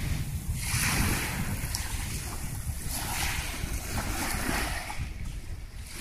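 Wind buffeting the microphone in a steady low rumble, with choppy sea waves washing in swells that come and go about every second or so.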